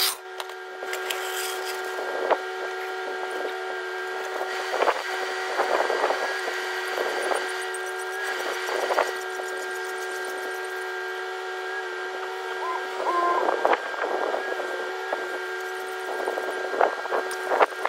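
Metal clanks and rattles of a hydraulic floor jack being set under a car and pumped to lift the front end, coming in irregular bouts over a steady hum.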